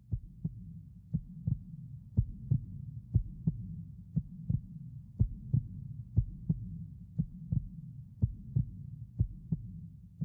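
Low double thumps repeating about once a second, like a heartbeat, over a low steady hum.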